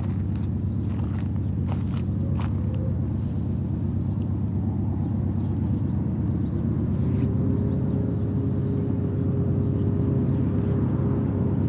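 Diesel-electric freight locomotives running under load as they approach, pulling a double-stack container train: a steady low engine rumble that slowly grows louder, with a higher hum that steps up slightly about halfway through.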